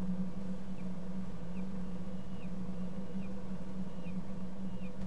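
Peregrine falcons calling at the nest: a thin, high call repeated about every 0.8 s, six times, each held briefly and then dropping in pitch. A steady low hum underlies it.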